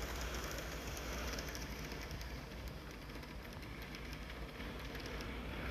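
N scale model electric trains running along plastic-based track: a steady low motor whir with a fine rattle of wheels over the rails.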